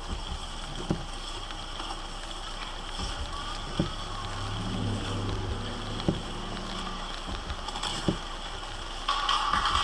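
Inside a car stopped in the rain: a steady hiss with a low engine hum, and soft knocks about every two seconds. A low drone swells in the middle, and near the end a louder rushing noise sets in.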